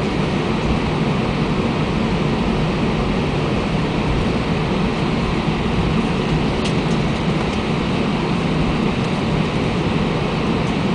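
Steady low rumble of an Airbus A320's engines and rolling wheels, heard inside the passenger cabin as the airliner moves along the ground.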